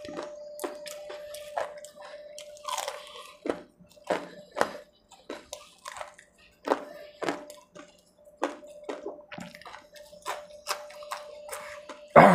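Close-up mouth sounds of a man eating chutney-dipped fried potato pakora with his fingers: wet smacking, chewing and finger-licking clicks coming irregularly, about one or two a second, over a faint steady hum. A louder sudden sound comes right at the very end.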